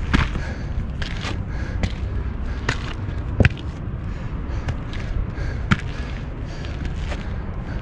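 Footsteps crunching and scuffing on a rocky, gravelly mountain trail: a string of short, irregular steps about two a second, one louder knock about halfway through, over a steady low rumble.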